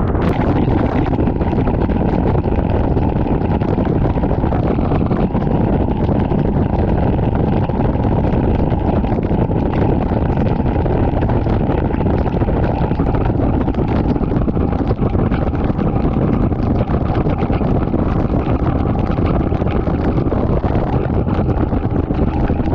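Steady wind buffeting the microphone on a bass boat running at speed, with the outboard motor's drone mixed underneath.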